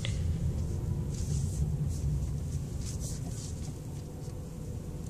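Low, steady rumble of a Jeep's engine and tyres heard from inside the cabin as it rolls slowly, easing off a little as it slows.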